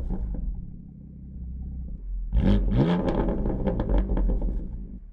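BMW M3 CS twin-turbo inline-six with an M Performance titanium exhaust, running loud at first and settling to a steady idle about a second in. From about halfway it is revved in throttle blips, its pitch rising and falling with each.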